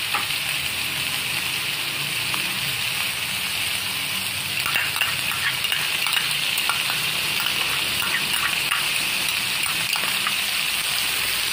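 Chicken pieces frying in a wok with a steady sizzle, the crackling picking up about halfway through as tomato sauce goes onto the hot chicken.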